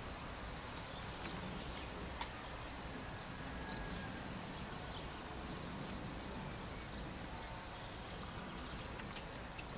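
Faint, steady outdoor background noise with a couple of light clicks and a few brief faint chirps.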